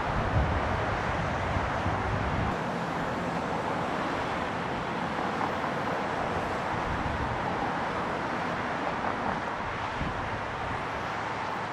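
Steady outdoor noise of wind and city road traffic, with low wind rumble on the microphone during the first couple of seconds.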